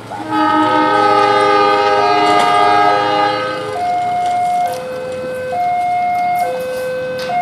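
Air horn of an approaching KAI diesel locomotive sounding one long chord of several notes for about three and a half seconds. It is followed by a two-note warning tone that alternates about once a second.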